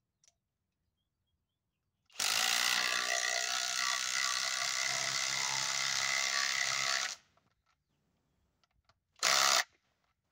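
Kobalt XTR 24-volt impact driver hammering a large screw into a log in one steady run of about five seconds, then a second short burst of about half a second near the end.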